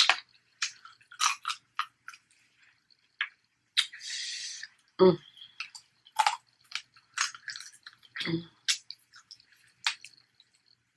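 Close-miked eating: irregular chewing clicks and crunches, a hissing slurp of about a second around four seconds in, and two duller knocks around five and eight seconds.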